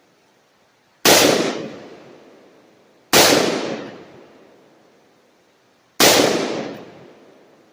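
Three gunshots fired at targets, about two and three seconds apart, each a sharp crack followed by a long fading echo.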